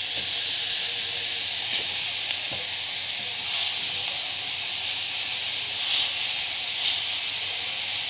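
Oil sizzling steadily in a pan as chopped onions and crumbled paneer fry, with a few brief scrapes of a metal slotted spoon.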